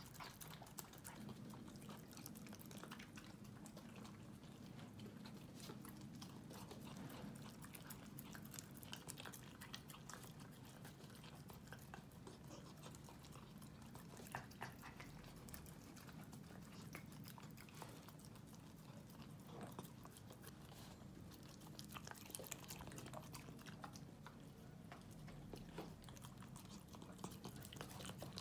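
English Cocker Spaniel puppy licking and mouthing food off a metal spoon: faint, irregular small licking and smacking clicks over a low room hum.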